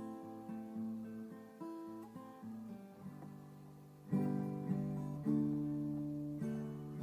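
Acoustic guitar played by hand: softer picked notes ringing over held chords, then louder strummed chords from about four seconds in.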